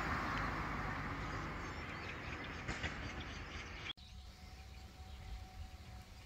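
Outdoor ambience: a steady rushing noise that eases off gradually, then, after an abrupt cut about four seconds in, a quieter background with a faint steady hum.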